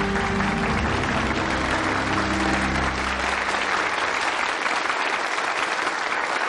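Audience applauding steadily, with music underneath that fades out about halfway through.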